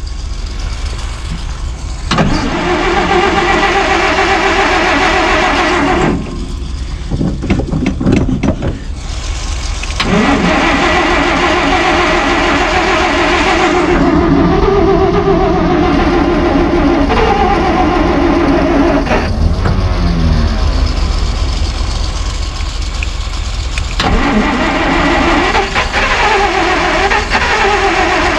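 Starter cranking the long-parked 1949 Plymouth's flathead six-cylinder engine in several long bursts with short pauses between, the engine turning over as it is coaxed to start.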